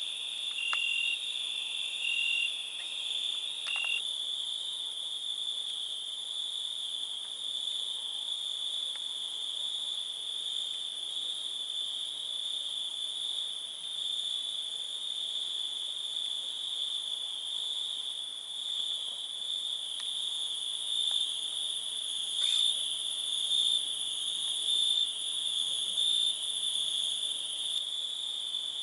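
Night chorus of crickets: a continuous, steady, high-pitched trilling, with a fainter band higher up. In the first four seconds a separate short note repeats about once a second, then stops.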